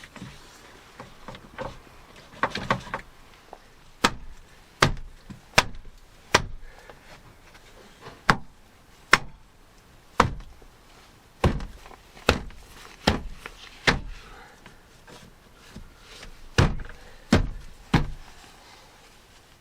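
Sharp knocks against a Land Rover Discovery 2's rear door: a few soft clicks at first, then about fourteen hard blows at uneven spacing, each ringing briefly.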